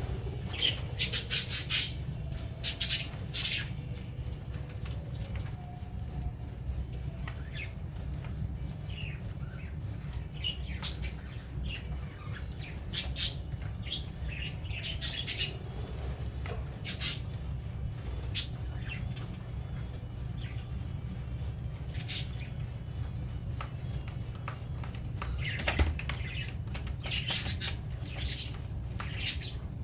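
Budgerigars making short, sharp chirps and chatter, scattered irregularly and busiest in the first few seconds and near the end, over a steady low hum.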